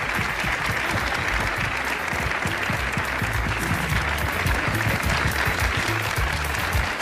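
Studio audience applauding, a dense steady clatter of many hands clapping, with music and a low bass line coming in under it about halfway through.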